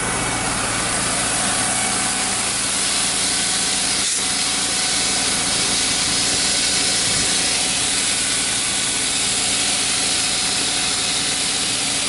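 Shelled corn pouring steadily from a grain trailer into an auger hopper, a continuous hiss, over the steady hum of an engine running.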